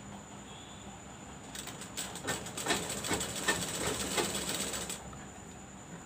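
Sewing machine stitching fabric, its needle mechanism clacking in a quick, even rhythm of about three strokes a second. It starts about a second and a half in and stops at about five seconds.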